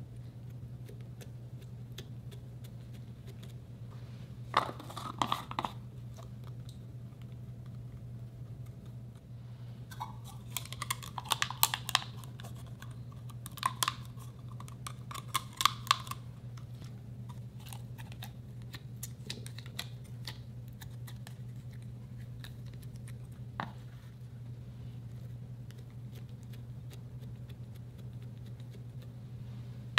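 Slime being poked and pressed with fingers in a plastic jar, giving short bursts of clicks and crackles: a brief burst about five seconds in, a longer run around the middle, and a single click later on. A steady low hum lies underneath.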